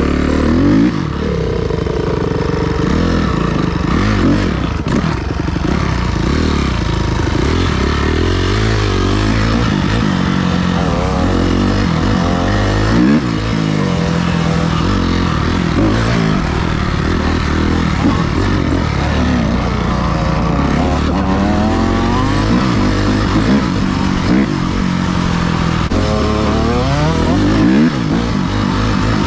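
Dirt bike engine running hard under load, its pitch climbing in repeated rising sweeps and dropping back as the rider accelerates and shifts through the gears.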